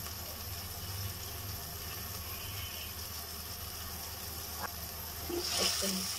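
Onions and whole spices cooking in oil and a little water in a metal pot, a faint steady sizzle over a low steady hum. Near the end a wooden spatula starts stirring the ginger-garlic paste into them, with a few light scrapes and a louder sizzle.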